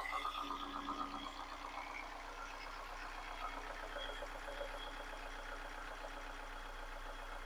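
VW Tiguan's worn 2.0-litre four-cylinder engine idling with a fast, steady ticking and clatter. The owner puts the ticking down to the direct injectors and the cam phaser clicking and cam lobes smacking, signs of a worn engine with low oil pressure.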